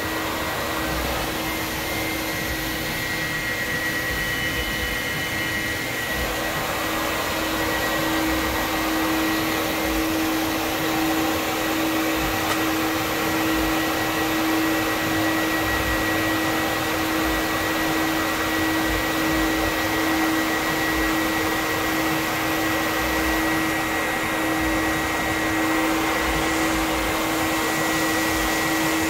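Rhino-Mat automatic floor mat wash and dry machine running steadily while a rubber floor mat is fed through it: a blower-like rush with a steady low hum and a thin high whine.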